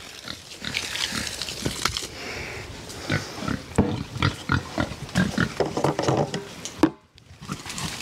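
Feeder pigs grunting, many short grunts in quick succession, with a brief break just before the end.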